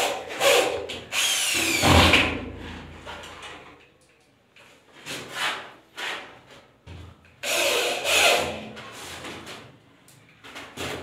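Cordless drill driving screws through a gypsum board into the ceiling framing, in short whirring bursts. The longest runs come about a second in and again near the eight-second mark, with the motor pitch sliding down as a screw bites in.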